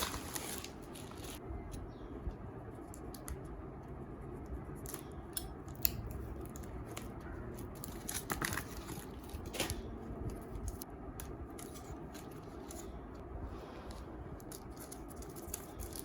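A taped parcel being opened by hand: scattered small clicks, scrapes and rustles of packaging and tape being cut and worked loose.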